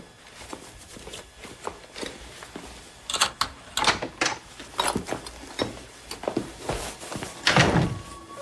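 Footsteps and scattered knocks and clatters of people moving through a small room, growing busier partway through, with a heavier thump near the end.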